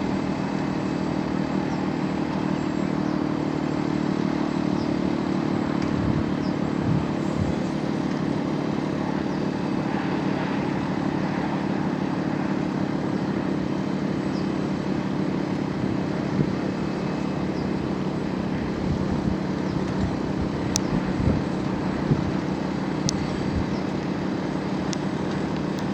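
A vehicle engine running steadily, with a few faint sharp clicks near the end.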